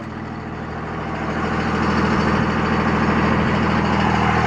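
5.9-litre 24-valve Cummins straight-six turbo diesel idling steadily, growing louder over the first couple of seconds and then holding level.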